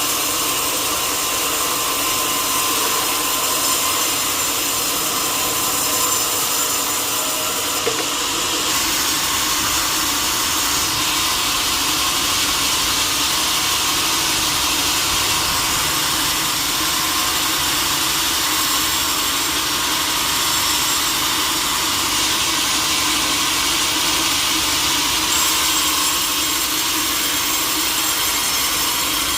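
Sawmill saw running and cutting through teak wood, a steady loud machine noise with a faint whine; the sound grows fuller and deeper about eight seconds in.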